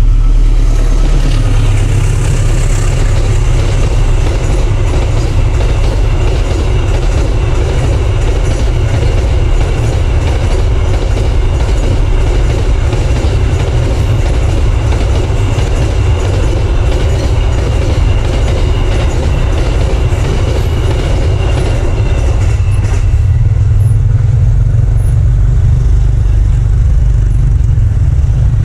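Container freight train passing close by over a level crossing. The wagons' wheels clatter on the rails over a loud, steady rumble, with a thin high ringing tone through most of it that stops a few seconds before the end.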